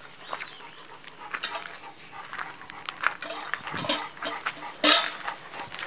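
Puppies at a stainless steel food bowl: the metal bowl clinks and knocks repeatedly, with one loud knock about five seconds in, over paws scuffling on gravel.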